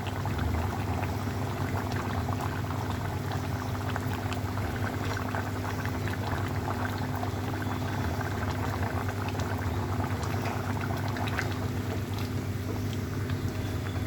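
Egg and cauliflower curry gravy bubbling in a kadai on the stove, a steady simmer of many small pops and sputters over a steady low hum.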